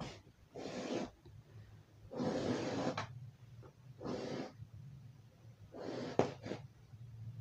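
Green yarn being drawn through a woven sack strip with a long eye needle as a mat edge is bound, giving four short rasping swishes. A sharp click comes during the last one.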